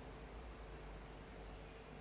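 Faint room tone: a steady hiss with a thin, steady hum and no distinct events.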